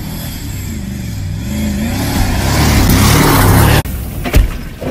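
A full-size SUV's engine revving hard, its pitch rising and falling, with a rushing noise that grows louder as the vehicle speeds past over dirt. The sound cuts off abruptly near the end, followed by a couple of sharp knocks.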